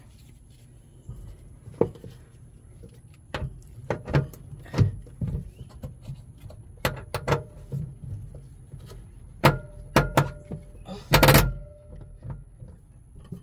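Heavy battery cables with metal ring lugs being handled inside a sheet-metal battery compartment: scattered clicks and knocks, some with a short metallic ring, the loudest a longer clatter about eleven seconds in.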